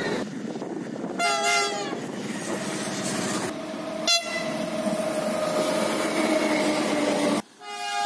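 Train horns over the running noise of a passing train: a short chord-like blast about a second in, then one long held horn note that falls slightly in pitch midway. It cuts off abruptly shortly before the end, and a new multi-tone horn starts right after.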